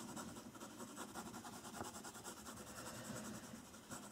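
Faint scratching of a watercolour pencil on watercolour paper in quick back-and-forth hatching strokes as an area is shaded in.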